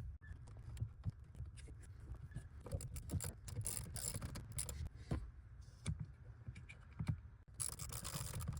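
A steady low hum from the running truck, with irregular light clicks and rattles scattered throughout.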